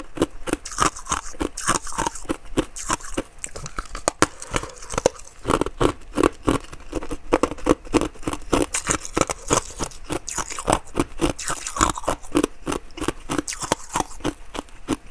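Close-miked chewing of crunchy ice: rapid, uneven crunches several times a second with wet mouth sounds between them, and one sharper crack about four seconds in.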